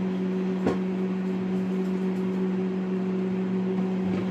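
Microwave oven running with a steady electrical hum, and a single short knock about a second in.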